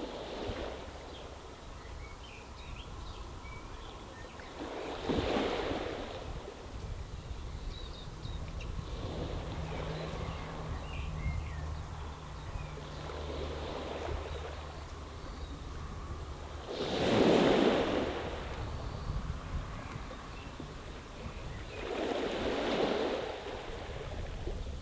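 Small waves washing in over a stony beach, a rushing surge every four to five seconds, the loudest about two-thirds of the way through, over a low steady rumble.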